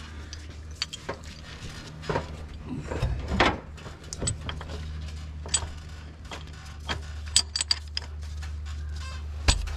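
Irregular knocks and metallic clinks of diesel fuel injectors and their hold-down clamps being pushed and tapped down into the cylinder head by hand, with a few louder knocks, over a steady low hum.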